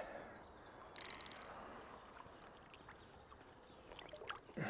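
Faint splashing and sloshing of water as a hooked carp swirls at the surface close to the bank. About a second in there is a short run of quick, evenly spaced clicks.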